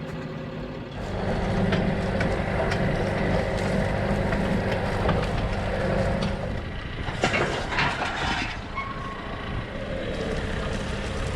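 John Deere 6430 tractor's diesel engine running steadily, heard from inside the cab, getting louder about a second in. A few sharp knocks and rattles come about seven to eight seconds in.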